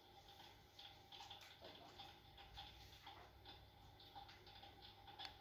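Very faint, irregular crackling ticks from an electric fireplace's simulated log-crackle sound effect, over a faint steady hum.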